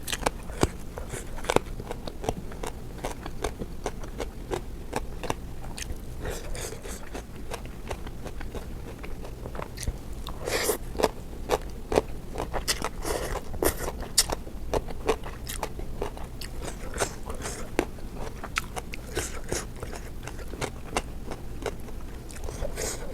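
A person biting and chewing crunchy food close to the microphone, with many sharp, irregular crunches and mouth sounds.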